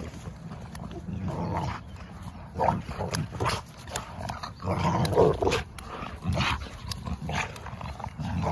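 Two blue-coated dogs growling in play while tugging on a rope toy, in irregular bursts of low rumbling.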